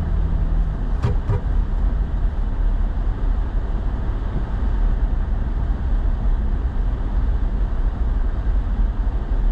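Road and engine noise heard from inside a moving truck's cab: a steady low rumble, with a couple of brief clicks about a second in.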